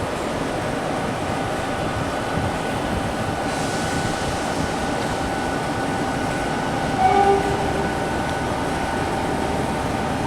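A train running at close range: a steady rumble with a faint constant hum. A brief, louder two-pitch tone sounds about seven seconds in.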